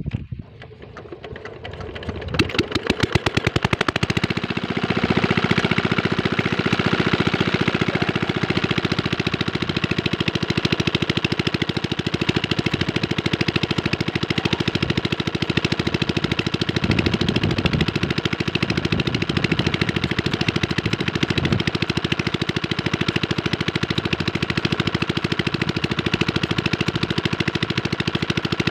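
Small Chinese single-cylinder diesel engine driving an irrigation water pump, starting up: slow separate firing strokes quicken and catch about two to four seconds in. It then runs steadily under the pump's load.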